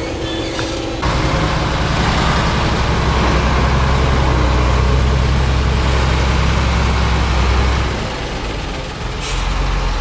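Heavy diesel dump truck running close by and pulling away, its engine a loud, steady low drone. Near the end comes a short hiss of its air brakes.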